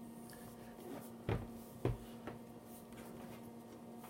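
Two sharp knocks about half a second apart, then a fainter tap, from a hard plastic Pelican case being handled.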